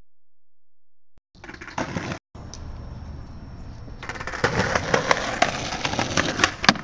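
After about a second of silence, skateboard wheels rolling over pavement, getting louder about four seconds in, with sharp clacks and knocks of the board, the loudest near the end.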